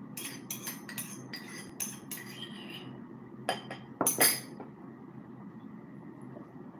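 Metal cutlery clinking and scraping on ceramic dishes: a quick run of light clinks over the first few seconds, then a few louder clinks about four seconds in.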